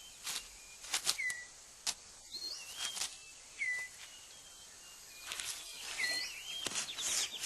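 Rainforest ambience: short whistled bird calls, several sliding down in pitch and a few with an upward hook, repeating every second or two, among scattered sharp clicks and snaps.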